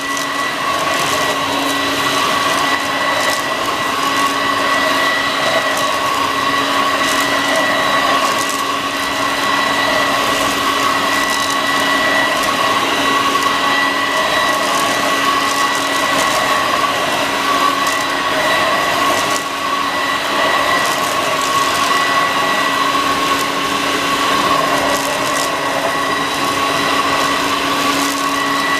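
Homemade cyclonic bagless upright vacuum cleaner running steadily over a shag rug: an even rush of air under a steady high motor whine.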